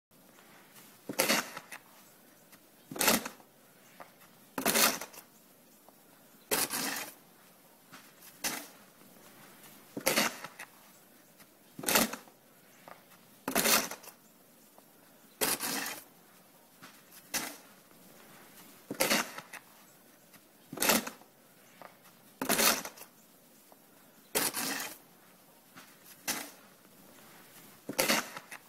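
Snow shovel scraping along a snow-covered walk in short, sharp strokes at an even pace, about one every two seconds, as snow is pushed and cleared.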